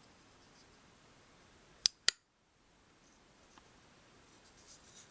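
Sencut Citius flipper folding knife's blade action clicking: two sharp metallic clicks about a fifth of a second apart, amid faint handling of the knife.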